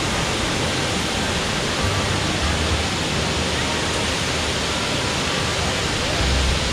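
Waterfall: a steady rush of falling water, with a few brief low rumbles beneath it.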